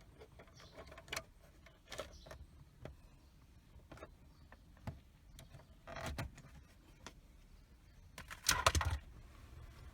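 Scattered light clicks and clinks of hand tools and metal parts being handled while a component is removed, with a louder clatter near the end.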